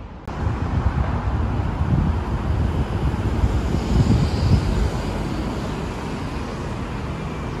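Outdoor city ambience: a steady wash of traffic noise, with wind buffeting the microphone in uneven low gusts.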